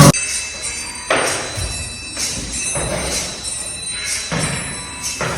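Loud rap music cuts off abruptly at the start, followed by quieter background music with a soft beat of about one hit a second and steady high tones.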